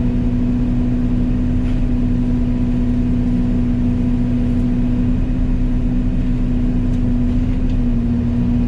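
Yanmar Vio80 excavator's diesel engine and Fecon FMX36 hydraulic forestry mulcher head running steadily at speed, a constant hum with a few faint ticks, as the mulcher teeth shave down the edge of a tree stem.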